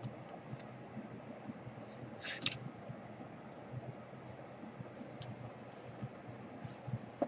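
Faint clicks and one short scratchy rustle about two seconds in, from small laptop parts and cables being handled during reassembly.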